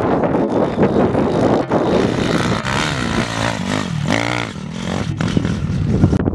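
Enduro dirt bike engines revving as the motorcycles ride past. About four seconds in, an engine note dips and then climbs again as the rider works the throttle.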